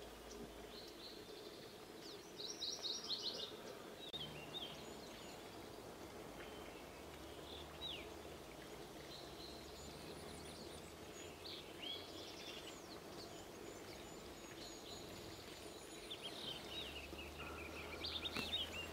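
Several small birds chirping and calling, with a short trill about three seconds in and another near the end, over the steady hiss of falling rain.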